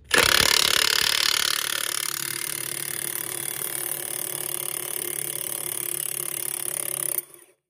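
Impact gun hammering the screw of a C-clamp ball joint press, forcing the upper ball joint out of a Dana 60 front axle steering knuckle. A steady, rapid hammering, loudest in the first two seconds, that stops abruptly about seven seconds in.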